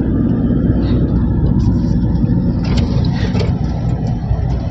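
Steady low road rumble of a moving car heard from inside its cabin, engine and tyre noise together, with a few faint short ticks about three seconds in.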